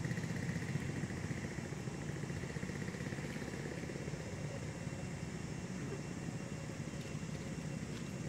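Small engine idling steadily off-screen, an even low rumble with no change in speed.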